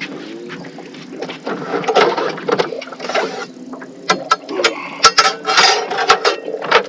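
Clicks, knocks and rattles of handling in a fishing boat while a freshly landed hybrid bass is dealt with. The clicks come sparsely at first and grow thick and sharp about four seconds in.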